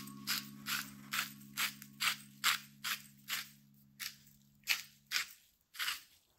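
A spice container shaken or turned in quick, even strokes over the tray, sprinkling seasoning onto sliced mushrooms, each stroke a short dry rattle at about two to three a second.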